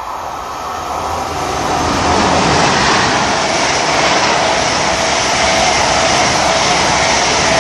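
Mark 3 passenger train passing through the station non-stop at speed. Its noise builds over the first two seconds as it nears, then holds as a steady loud rush of wheels and coaches going by close to the platform.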